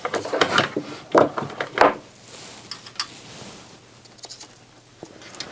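Handling noises: a few knocks, clicks and rubs as a meter's black ground lead is fitted against the satellite receiver's metal chassis. These come in the first two seconds, then give way to quiet room tone with a single small click.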